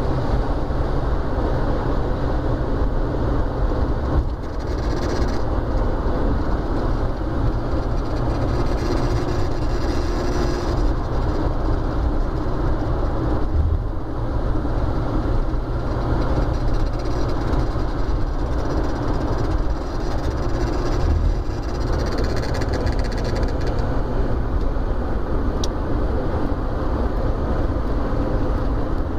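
Volkswagen Gol G4 running under way, a steady dense mix of engine, gearbox and road noise, with brief small dips about 4, 14 and 21 seconds in. The owner is filming a strange gearbox noise that three mechanics have not been able to cure.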